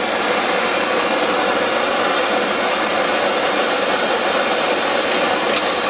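Handheld gas blowtorch burning with a steady rushing hiss, its flame heating a brass plate for soldering.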